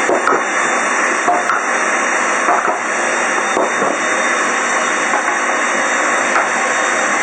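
Food frying in hot oil in a pan, a loud steady sizzle with a few light clicks from a utensil.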